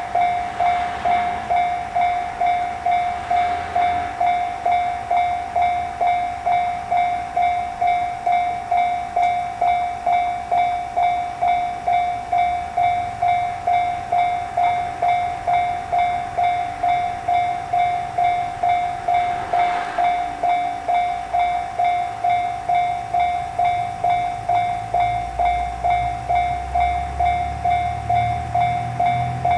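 Japanese level-crossing warning bell ringing, a single clanging tone repeating evenly about twice a second. A low rumble grows over the last few seconds.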